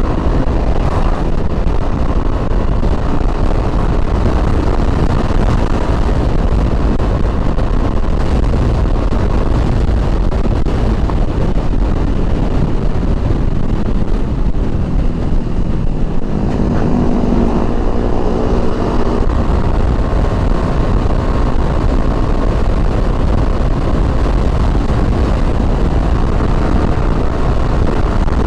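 Motorcycle riding at road speed, its engine running under heavy wind rush on the helmet microphone; the engine note shifts about halfway through.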